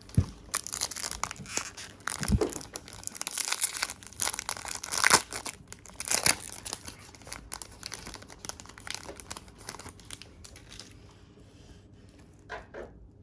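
A trading card pack's wrapper being torn open and crinkled by hand, a dense crackling that is loudest in the first half and thins out after about ten seconds, with a few light clicks near the end.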